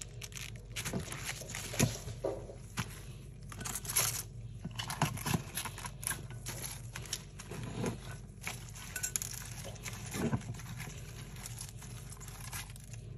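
Crinkling and rustling of raw cabbage leaves as a gloved hand presses and rearranges cabbage halves in a glass baking dish, with a few sharper clicks among the rustling.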